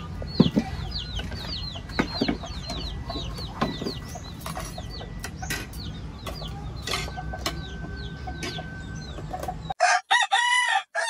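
Chickens clucking with chicks peeping in quick repeated high chirps, over a room's background hum, with light clinks of ceramic plates and metal spoons as a table is set. Near the end the background cuts out and a loud high call, like a rooster's crow, rings out.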